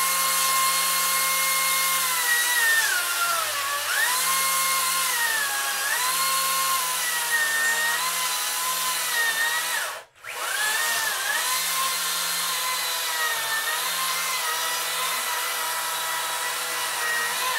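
Makita cordless chainsaw running on two 18 V batteries with a freshly hand-filed chain, cutting through a wooden stump. The electric motor's whine sags in pitch each time the chain bites into the wood, then recovers. The whine stops for a moment about ten seconds in and starts again.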